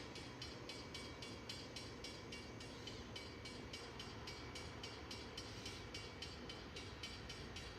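Freight train approaching from a distance: a steady, quiet rumble, with a fast, even pulsing of about four or five beats a second in the high range.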